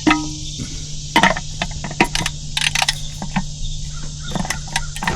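Irregular sharp clicks and knocks of tools and parts handled against metal while working on a tractor's oil drain and filter, over a steady low hum.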